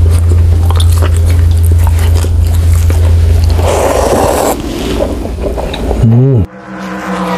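Close-miked eating sounds: chewing grilled beef steak, with many wet mouth clicks over a heavy low rumble, then a loud slurp of ramen noodles about three and a half seconds in. Near the end a swooping tone glides into a held musical chord.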